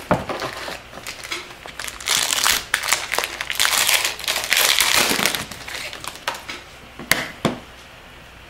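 Trading card packaging crinkling as it is handled, loudest for about three seconds in the middle. Light clicks come before it, and two sharper clicks come near the end.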